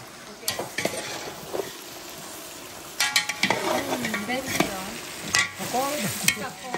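A metal spoon stirring and scraping through chunks of smoked pork and sausage frying in a pot, with the food sizzling and the spoon clicking against the pot. The stirring gets louder and busier about three seconds in.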